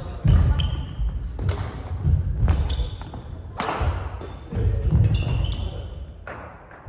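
Badminton rally: sharp racket hits on the shuttlecock, several about a second apart, with rubber-soled court shoes squeaking and feet thudding on the wooden gym floor.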